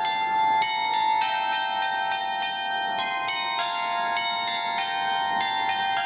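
Carillon of bells on a clock post playing one of its hourly tunes, a new bell note about every half second, each ringing on under the next.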